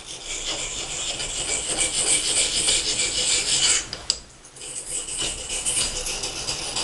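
Steel knife blade stroked back and forth on a coarse sharpening stone in a continuous run of scraping, breaking off briefly about four seconds in with a click, then starting again. The stroking is hand-sharpening a knife whose edge has been dulled by cutting wire.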